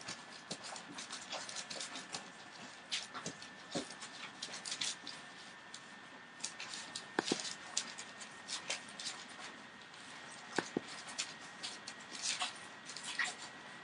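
Litter of 18-day-old Entlebucher Mountain Dog puppies moving about, with many scattered light rustles, scratches and clicks and a few sharper knocks.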